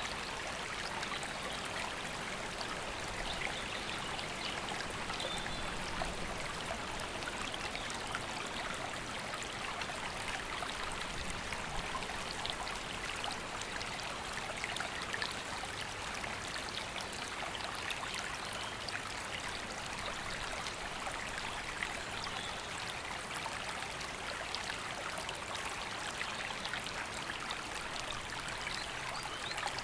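River flowing over stones: a steady, even rush and babble of water that does not change.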